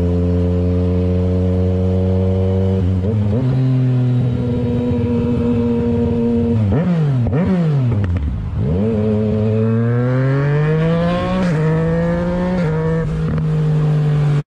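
Motorcycle engine running at steady revs, then the revs drop steeply and swoop down and up a few times around the middle as the throttle is closed. It then climbs smoothly again, with a step in pitch at each gear change near the end.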